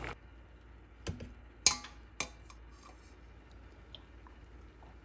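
A few sharp clicks and knocks of a stainless-steel pot and utensils being handled: three close together between one and two seconds in, the middle one loudest, then a few faint ticks.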